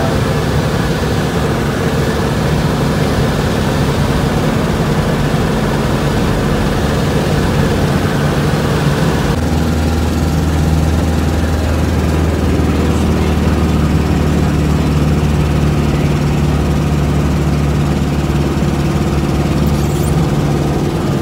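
Jabiru 430 light aircraft's 2.2-litre four-cylinder Jabiru engine and propeller droning steadily in flight, heard inside the cabin. About nine seconds in, the pitch of the drone shifts, a change in engine power.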